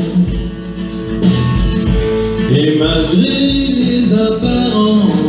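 A man singing a French pop ballad into a handheld microphone over a backing track with guitar.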